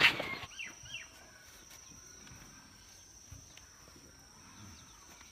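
Quiet outdoor ambience with a steady high-pitched insect trill and a few short bird chirps in the first second, after a brief loud sound cut off right at the start.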